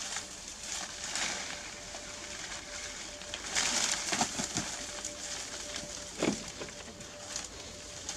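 Leaves and thin branches rustling and shaking as a young monkey climbs and hangs in a leafy tree, with louder crackling rustles about three and a half seconds in and again near six seconds.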